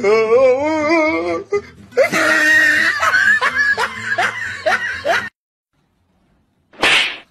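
Loud laughter, one voice rising and falling in pitch, then several voices laughing together. It cuts off suddenly about five seconds in, and a short burst of noise follows near the end.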